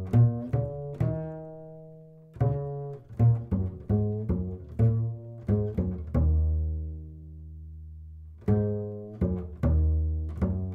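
Background music of low plucked string notes picked out one after another, each ringing and fading, with one note left ringing longer about two-thirds of the way through.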